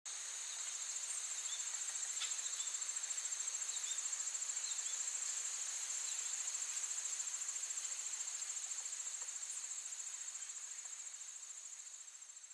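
A steady, high-pitched insect trill, cricket-like, made of rapid even pulses, with a few faint short chirps and a single click about two seconds in.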